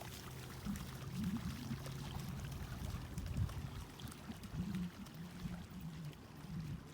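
Lake water sloshing and trickling, over a low steady rumble.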